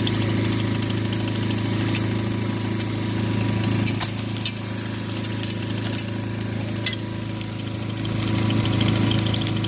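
Keen 151S dry washer running: its small motor-driven blower hums steadily, with a few sharp ticks near the middle while damp material is fed through.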